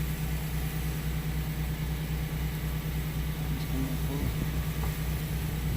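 An engine running steadily at idle: a low, even, pulsing hum.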